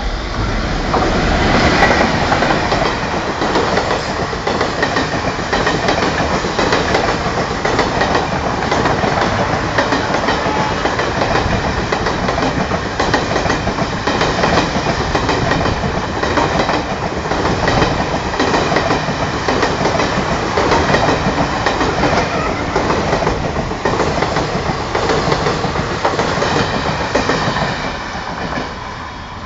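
WAP-4 electric locomotive and its train of passenger coaches passing close by at speed: a loud, steady rush of wheel and rail noise with a clickety-clack over the rail joints. Loudest as the locomotive goes by about two seconds in, falling away near the end as the last coach passes.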